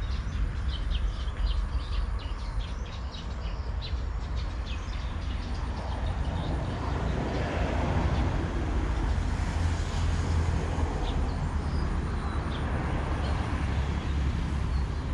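Road traffic passing: a steady low rumble that swells into louder vehicle noise about seven seconds in, with light ticking in the first few seconds.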